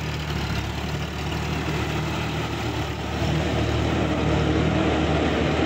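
Sonalika Supreme DI 50 RX tractor's diesel engine running steadily as the tractor drives through a flooded, muddy paddy field; it gets louder about three seconds in.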